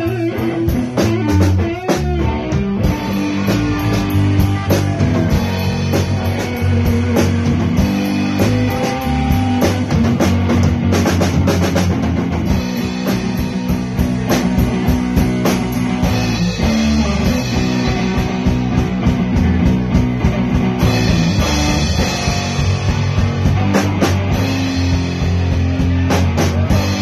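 Live rock band playing loud: electric guitar, electric bass and a drum kit, with the drums keeping a steady, driving beat.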